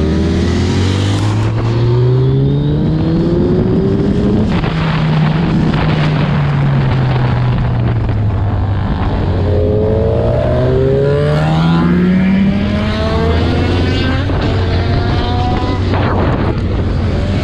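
Suzuki Hayabusa's inline-four engine accelerating up through the revs, easing off about five seconds in, then pulling hard again, with wind rushing past.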